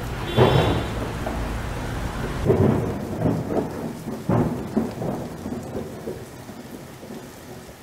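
Rain falling with rolls of thunder. The loudest rumbles swell about half a second, two and a half and four and a half seconds in, and the storm dies away toward the end.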